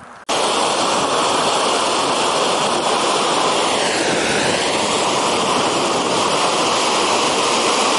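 River water rushing over rock ledges in small waterfalls, a loud, steady rush that cuts in suddenly a fraction of a second in.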